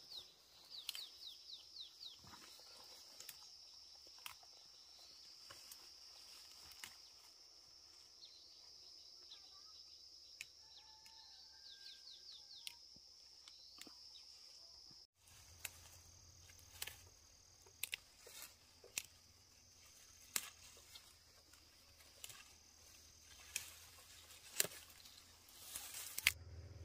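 Steady high-pitched insect chirring, like crickets, with a few quick falling chirps and scattered sharp clicks and knocks. About halfway through the sound changes abruptly and the clicks come more often.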